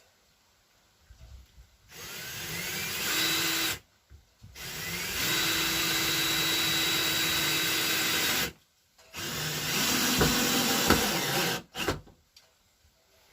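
Power drill driving screws into the camper's wall framing: three runs of the motor, each spinning up with a rising whine and then holding steady, the middle one the longest, with short pauses between.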